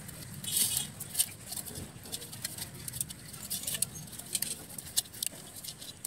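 Handling sounds of a plastic-coated electrical wire being wrapped and pulled around a small clay pot: irregular light scrapes and clicks, the loudest near the start and about a second in.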